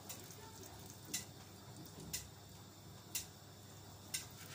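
A clock ticking, one short, sharp tick about every second, over a faint steady room background.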